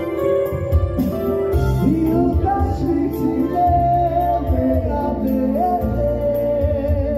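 A man singing into a handheld microphone, his voice coming in about two seconds in, over a Korg electronic keyboard playing sustained chords with a bass line through a PA.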